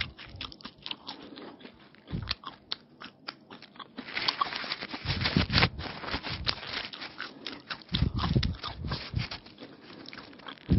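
Close-miked chewing and crunching of an egg roll filled with raw onion and cucumber. From about four seconds in, the paper wrapper crinkles and rustles as well.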